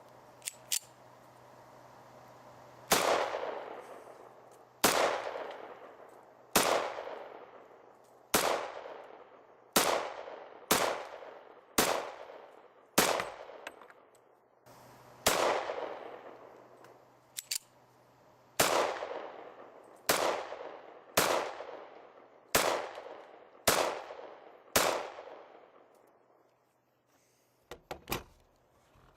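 Springfield Armory 1911 .45 ACP pistol firing about fifteen single shots, spaced one to three seconds apart, each followed by a ringing echo tail. A few faint clicks come just before the first shot and again near the end.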